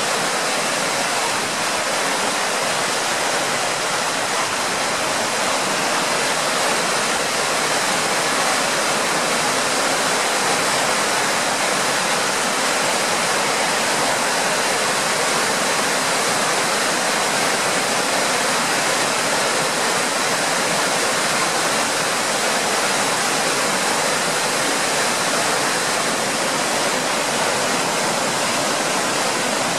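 River swollen by a flash flood, pouring and churning over a low weir step: a steady, loud rush of water.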